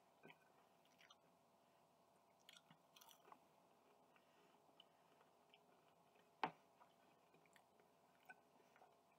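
Faint chewing and mouth sounds of someone eating a bacon, egg and toast sandwich: scattered soft smacks and clicks, with one sharp click about six and a half seconds in.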